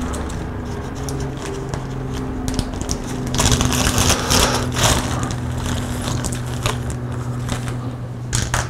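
A small clear plastic hardware bag crinkling and rustling in the hands, loudest about three to five seconds in, over a steady low hum.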